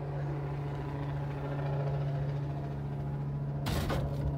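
Boat engine droning steadily with a strong low hum. About three and a half seconds in, a sudden loud noisy burst lasting about half a second cuts across it.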